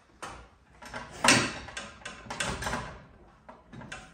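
Irregular knocks, clanks and scrapes of a deer carcass and its metal gambrel being handled under an overhead electric hoist. The loudest scrape comes about a second in, with a cluster of shorter ones about halfway through.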